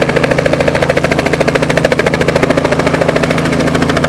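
Robinson R44 helicopter in flight: the main rotor's fast, even chop over the steady hum of its Lycoming six-cylinder piston engine, loud and unchanging.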